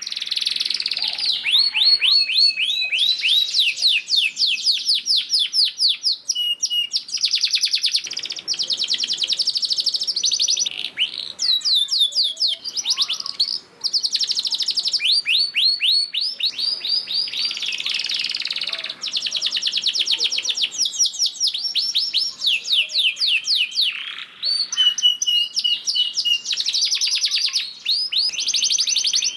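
Domestic canary singing a long, continuous song of fast rolling trills made of rapidly repeated falling notes, with a few short held whistles in between.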